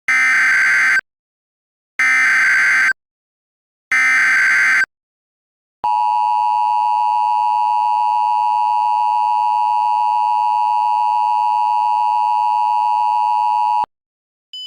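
Emergency Alert System broadcast tones: three buzzy one-second SAME digital header bursts about two seconds apart, then the steady two-tone EAS attention signal held for about eight seconds before it cuts off sharply. Together they announce the start of an emergency alert.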